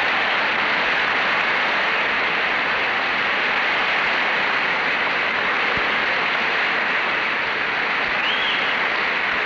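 A large audience applauding in a steady, sustained round of clapping.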